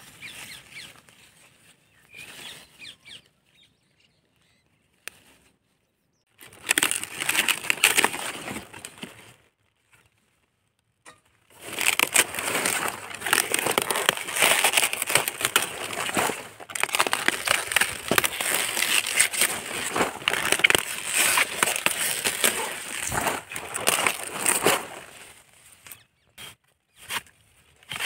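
Cauliflower plant being handled and cut by hand: its big leaves rustle and crackle and the stem crunches under a small knife. The noise comes in a short stretch about seven seconds in, then runs steadily from about twelve seconds in for some thirteen seconds.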